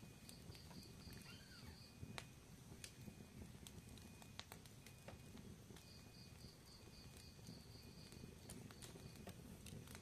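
Wood fire crackling faintly: scattered sharp pops and snaps, irregularly spaced, over a low steady rush of burning.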